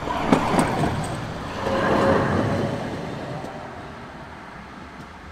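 London Tramlink tram, a Bombardier CR4000, running past close by on ballasted track and pulling away, its wheels and running gear loudest at first with a sharp knock, then fading steadily. A short whine rises out of it about two seconds in.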